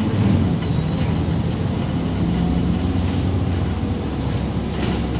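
Inside a MAZ-203 city bus under way: a steady low engine drone, with a thin high whine that drops in pitch in the first second.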